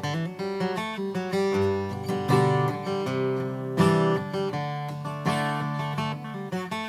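Acoustic guitar playing a chord progression in G, strummed chords mixed with single-note riffs on the open strings.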